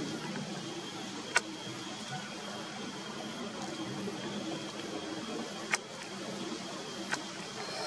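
Steady low hum and hiss with a faint, steady high tone, broken by three sharp clicks: one about a second and a half in, one near six seconds and one about seven seconds in.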